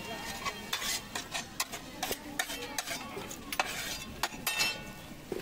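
A metal spoon stirring and scraping on steel cookware, giving irregular sharp clinks, some with a short ring.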